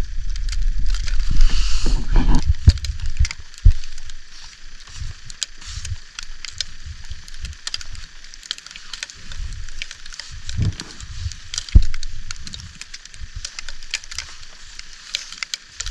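Gloved hands brushing and pushing heavy wet snow off a tent fly and handling the door fabric: irregular soft thumps with rustling of the tent fabric.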